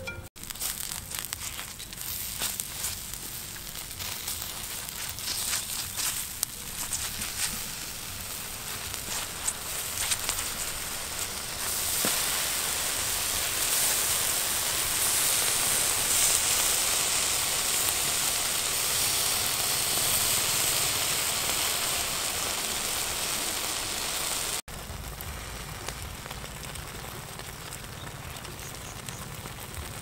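Whole duck roasting on a spit over glowing charcoal, the coals and basting sauce crackling and sizzling. Many sharp pops at first, then a louder steady sizzle from about halfway through, which drops off suddenly near the end to a quieter hiss.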